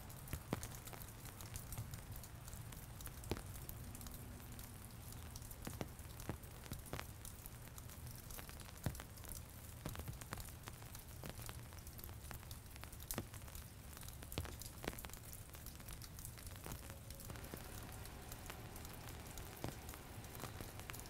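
Scattered faint clicks and crackles over a steady low hum, with faint held tones coming in about seventeen seconds in.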